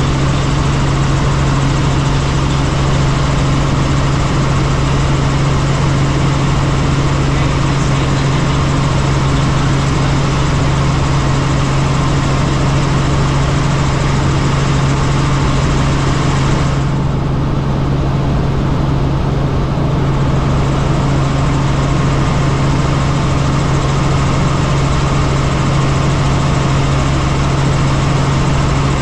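Helicopter running with a steady, loud drone: a strong low hum under a dense hiss. The upper hiss briefly goes muffled for a few seconds a little past the middle.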